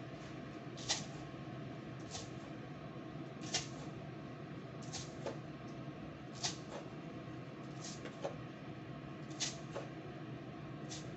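Short sharp clicks, about one every second or so, some with a brief ring, over a steady low hum.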